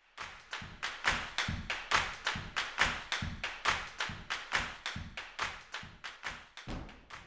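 A rhythmic percussion beat: sharp claps or taps mixed with low thumps, about four hits a second, fading toward the end.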